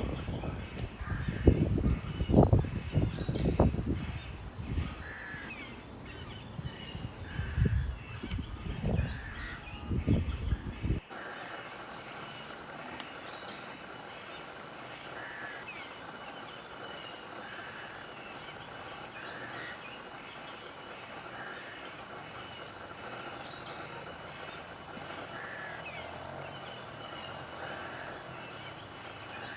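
Small birds chirping, with many short, high, falling chirps. For the first part there are loud, irregular low rumbles over them. About eleven seconds in the sound cuts to a steadier recording of repeated chirps over a faint even hiss.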